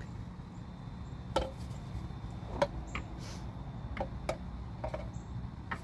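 A series of sharp, irregular knocks and clinks, about seven in all, of tools and parts against the car as the new rear wheel hub assembly is fitted.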